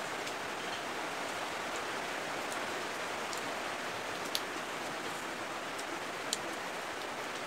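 Steady hissing noise with a few sharp clicks on top, the loudest two about four and six seconds in.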